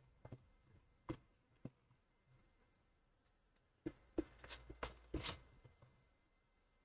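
Faint scattered clicks and taps of handling at a desk: a few single taps in the first two seconds, then a busier run of taps and rustling from about four to five and a half seconds in.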